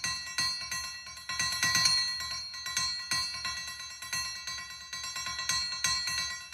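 Light, irregular metal-on-metal taps, about three or four a second, of a thin pointed steel rod against a steel bar; each one sets the steel ringing with a steady, bell-like tone.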